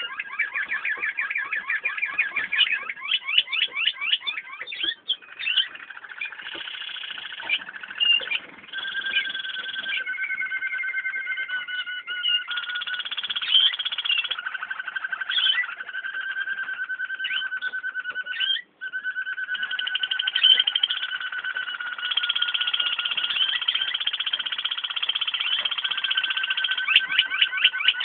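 Waterslager canary song: an unbroken run of rapid rolls and trills, switching from one repeated phrase to the next every second or two.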